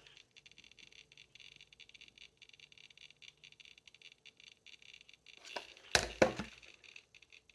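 Faint crackling hiss, then a quick cluster of sharp clicks and knocks about six seconds in, like objects being handled and set down.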